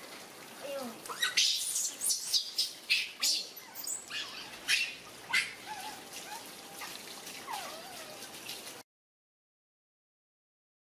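Water from a garden hose splashing over baby macaques and a wet tiled floor, with a quick run of sharp high-pitched squeals and chirps from the young animals in the first half and a few softer gliding calls after. The sound cuts to dead silence near the end.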